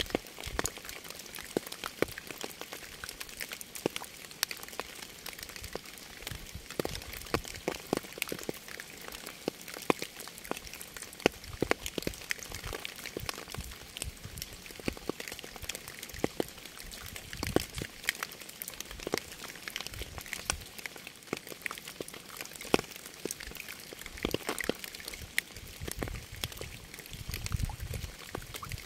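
Rain falling: a steady hiss made of many separate drop impacts landing at irregular intervals, with a soft low rumble coming in near the end.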